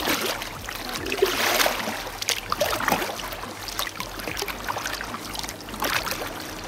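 Kayak paddle strokes in calm water: the blades dip and pull, with irregular splashes and drips about once a second.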